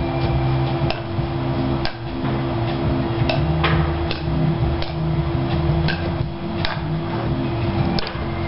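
Kadima paddles hitting the ball back and forth in a rally: about nine sharp wooden knocks, roughly one a second, over a steady low hum.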